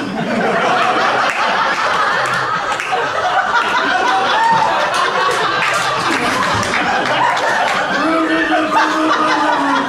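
A live audience laughing continuously. A steady held tone rises above the laughter near the end.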